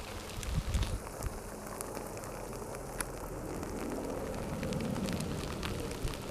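Active lava flow crackling: many scattered sharp cracks over a steady hiss, with a low rumble that grows in the second half.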